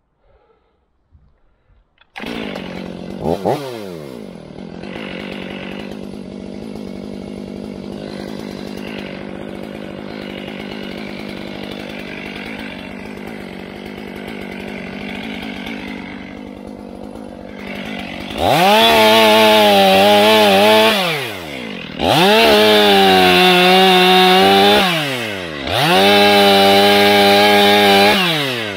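Stihl MS500i fuel-injected two-stroke chainsaw idling from about two seconds in, with one short blip of the throttle. Near the end it is opened to full throttle three times, sagging slightly under load as it cuts into a downed log, and drops back to idle between cuts.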